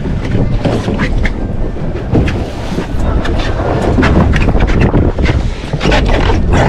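Wind buffeting the microphone aboard an open fishing boat, a loud low rumble with scattered knocks and clicks.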